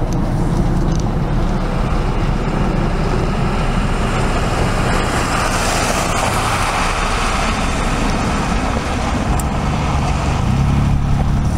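Loud, steady rumble of passing vehicles and a passing NJ Transit train, swelling as a car drives close by about six seconds in.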